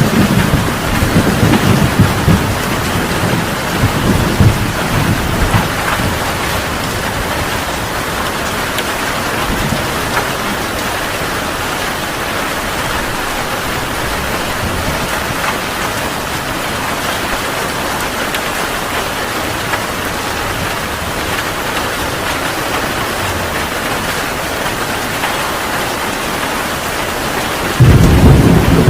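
Heavy rain pouring steadily. Rolling thunder rumbles over it at first and dies away within a few seconds, and another loud thunder rumble comes in suddenly near the end.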